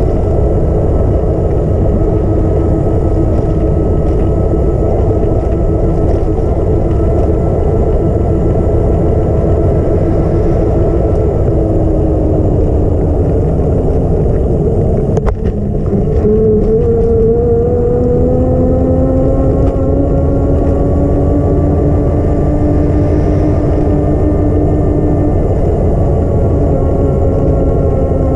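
A vehicle's engine running while driving, over steady road and wind noise. About halfway through the engine note sinks as it slows, there is a brief click and drop, then the note climbs again as it picks up speed.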